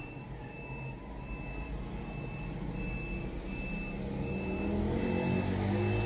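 A vehicle's reversing alarm beeps in a regular high-pitched pattern over a running engine, which grows louder toward the end.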